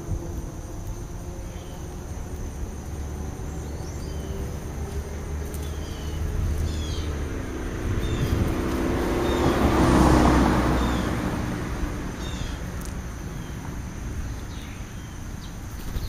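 A motor vehicle passing by, its engine and road noise swelling to a peak about ten seconds in and then fading. Through it come short high bird chirps about once a second and a steady high insect whine.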